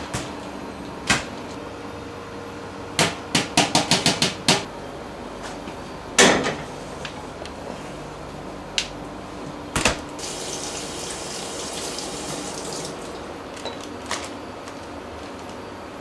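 Kitchen clatter from things being handled: scattered knocks, a quick run of clicks, and one louder bang about six seconds in. After that a tap runs for about three seconds.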